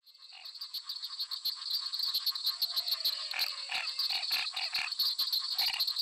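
A chorus of frogs giving short calls, several a second, over a steady high-pitched drone of insects. It fades in from silence over the first two seconds.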